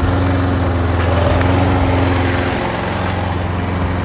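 Toro Recycler 20817 walk-behind lawn mower's Briggs & Stratton engine running steadily while it is pushed through tall grass, on its first test run after being repaired.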